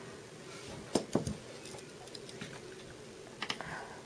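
A few light clicks and taps over quiet room tone: two close together about a second in and a short cluster near the end.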